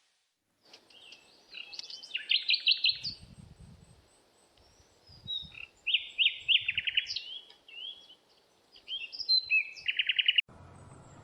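A bird singing: phrases of fast repeated chirps and short whistled slides, with three loud bursts, cutting off suddenly near the end.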